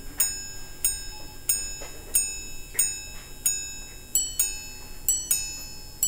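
Breguet minute repeater's red gold gongs struck by their hammers, chiming the time in a bench sound check of the freshly fitted gongs. Single ringing strikes on the low hour gong come about two-thirds of a second apart. About four seconds in, these give way to quicker two-note strikes that bring in the higher gong, the quarters.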